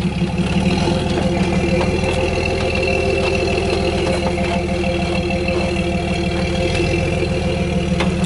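Jeep Wrangler YJ engine running at low, steady revs as the Jeep crawls slowly over rough ground, with a few faint ticks.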